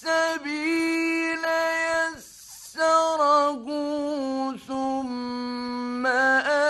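A man's solo voice chanting the Quran in the melodic mujawwad style, reciting 'thumma as-sabila yassarahu' in long held notes with ornamented turns of pitch. The chant breaks for a pause of about half a second about two seconds in.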